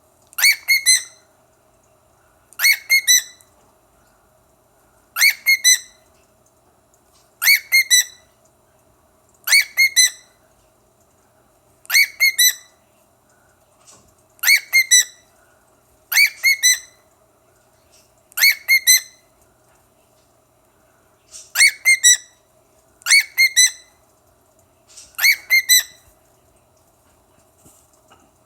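Male cockatiel calling over and over: a short burst of two or three quick shrill whistled notes, repeated about every two seconds, a dozen times.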